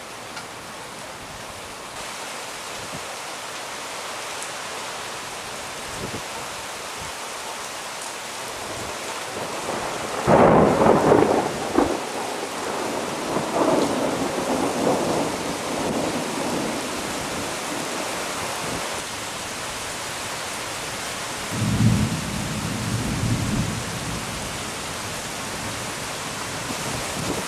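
Steady heavy rain with thunder: a loud peal about ten seconds in that rolls on for several seconds, and a second, deeper rumble a little after twenty seconds.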